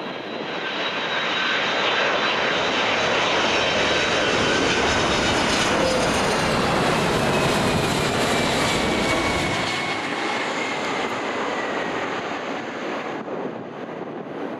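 Jet airliner flying past. Its engine noise swells to a loud rush and then fades, with a whine that slides down in pitch as it goes by.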